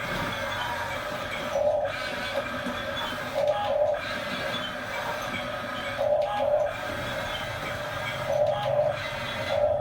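Small electric motors and gearboxes of a remote-control toy construction vehicle whirring steadily, rising into louder pulses every two to three seconds.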